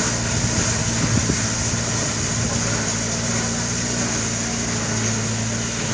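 Vehicle engine running at a steady speed with a constant low hum, under an even rush of road and wind noise while driving over a gravel road.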